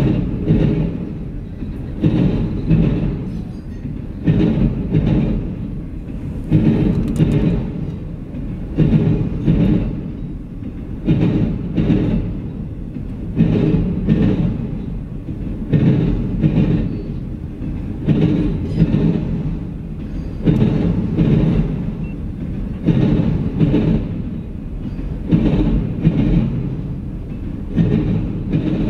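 Freight train of autorack cars rolling past: a steady rumble, with a loud cluster of wheel clacks about every two seconds as each pair of car trucks goes by.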